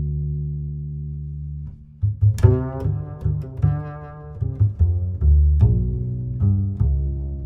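Music with deep, held bass notes. It drops out briefly about two seconds in, then comes back with a brighter melody over the bass, punctuated by sharp accents.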